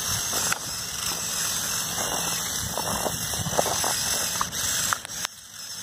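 Two Lego buggy motors driving the RC snowmobile's doubled tracks over snow and grass: a steady mechanical whir with rattling, dropping off briefly about five seconds in.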